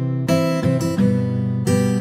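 Background music: an acoustic guitar strumming chords, a new strum about every half second.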